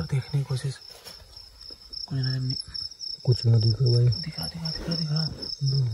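Crickets chirping steadily in a fast pulsing trill, with short low-pitched vocal sounds coming and going over it.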